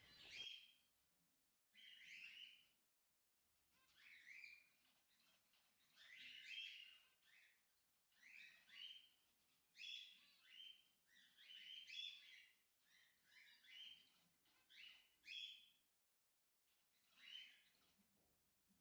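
Faint calls of zebra finches: many short chirps, often in twos, recurring every second or so, with a pause near the end.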